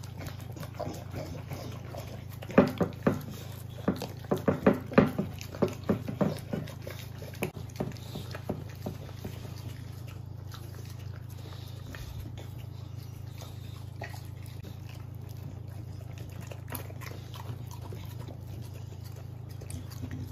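American Bully dogs licking and smacking as they eat soft mashed cake off a plate: a quick run of wet smacks from about two to nine seconds in, then only a few scattered ones. A steady low hum runs underneath.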